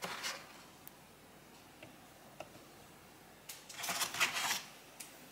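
Eggs being set into the perforated plastic tray of an electric egg cooker: light clicks and knocks of eggshell on plastic. A short knock right at the start, a few soft ticks, then a louder cluster of knocks about four seconds in as another egg is settled into place.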